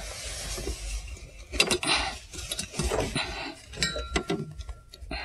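Objects being handled and moved about: a string of irregular clicks, knocks and light clinks, with a brief faint high steady tone about four seconds in.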